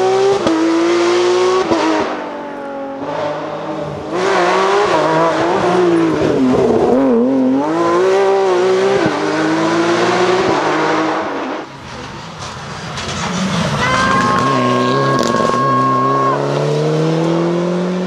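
Rally car engines at full throttle on a tarmac stage, first a Porsche 911's flat-six climbing through the gears, the pitch rising and then dropping back at each shift. The sound falls away about twelve seconds in, then the next car's engine builds as it comes through. A steady high tone holds for about two seconds near the end.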